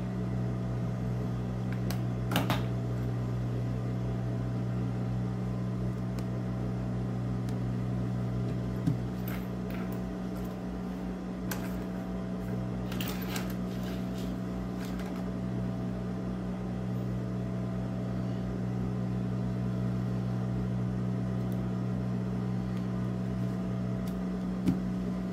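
Steady hum of an industrial sewing machine's motor running idle, with no stitching. A few soft rustles and light clicks come from fabric and pins being handled.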